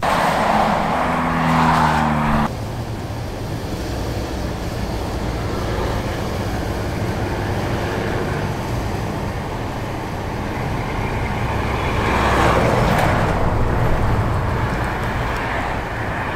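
Road and engine noise inside a moving car's cabin: a steady low rumble that swells briefly about twelve seconds in. It opens with a short, louder stretch carrying a low hum, which cuts off abruptly after about two and a half seconds.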